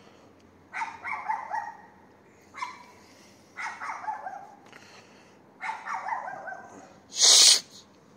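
A dog barking in four short bouts, each a quick run of barks, with pauses of about a second between them. Near the end comes a brief, loud burst of hiss-like noise, the loudest sound here.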